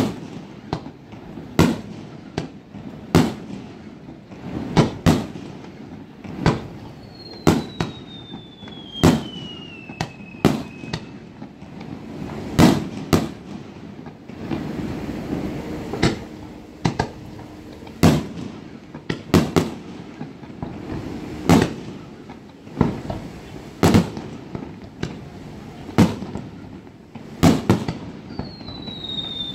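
Fireworks display: aerial shells bursting in sharp bangs every second or two. A whistle glides down in pitch over a few seconds partway through, and another starts near the end.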